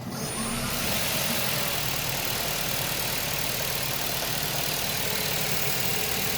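Steady mechanical running noise from the engine compartment of a 2016 Ford C-Max: an even low hum under a broad hiss. It is the noise the owner is documenting.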